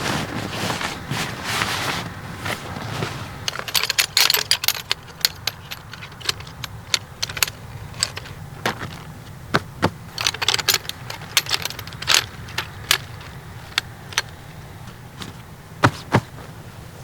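Camping gear being handled: irregular sharp clicks and light metallic jangling, some clustered, others single. Wind and surf noise fill the first two seconds, then drop away.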